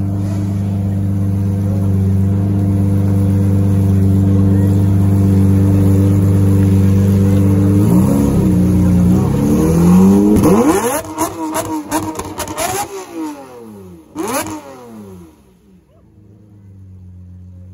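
Lamborghini Murciélago's V12 engine held at steady raised revs, then revved up about eight seconds in, climbing to a peak. A string of sharp throttle blips follows, the pitch falling away after each, before it drops back to a low idle near the end.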